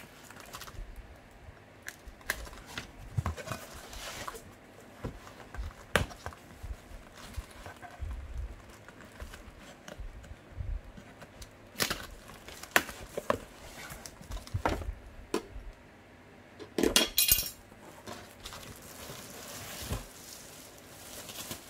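A knife blade scraping and slitting packing tape on a cardboard box, with scattered taps and scrapes on the cardboard. There is a short rasping burst about seventeen seconds in, and plastic packaging rustles as a wrapped parcel is lifted out near the end.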